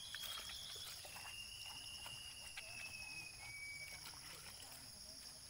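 Faint splashing and scrubbing of wet hands working a motorcycle's rear wheel, with scattered small clicks and drips. Under it runs a steady high insect chorus, and a long thin high whistle holds for about two seconds in the middle.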